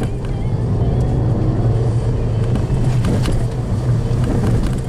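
Car engine and road noise heard from inside the cabin while driving slowly along a dirt forest track: a steady low drone, with a few sharp knocks and rattles, the loudest about three seconds in.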